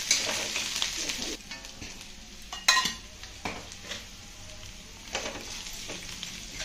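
Sliced onion and chillies frying in oil in a steel kadai, a soft sizzle that eases after the first second or so. A flat spatula stirs and scrapes them, knocking sharply against the pan a few times, loudest nearly three seconds in.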